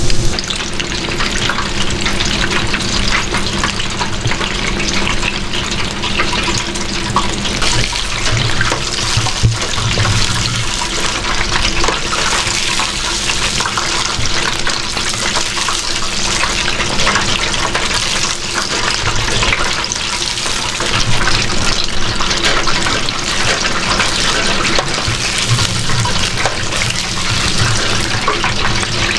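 Chicken karaage deep-frying in hot oil: a steady, dense sizzle and crackle of bubbling oil, with a faint steady low hum underneath.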